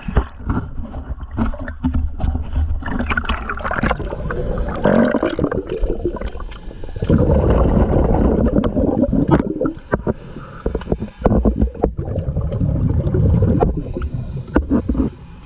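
Underwater noise with the camera submerged beside a boat hull: water movement and bubbling with a steady low rumble, broken by many short clicks and knocks, louder for a few seconds around the middle.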